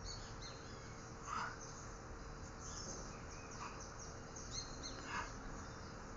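Faint high chirping of small birds over a steady background hiss. A few soft, short louder sounds come about every two seconds.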